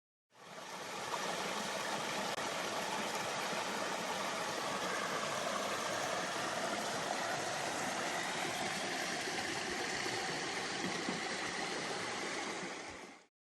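Steady rushing water, an even hiss and rumble with no rhythm, fading in at the start and stopping just before the end.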